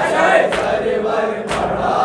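Male chorus chanting the noha refrain together, with rhythmic matam: open-handed chest beats land about once a second.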